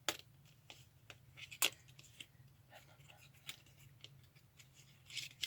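Faint clicks and light rustling of a small cosmetics package being handled and opened, the sharpest click about a second and a half in.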